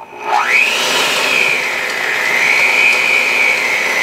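Cuisinart 7-speed electric hand mixer starting up: its motor whine rises quickly, then holds steady and high as the beaters work flour into creamed butter and sugar for shortbread dough.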